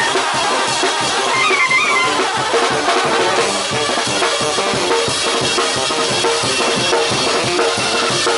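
Brass band of sousaphones, trombones, trumpets and clarinets playing loud over a steady drum beat, recorded from among the players; a held low brass note sits under the band from about two and a half seconds in.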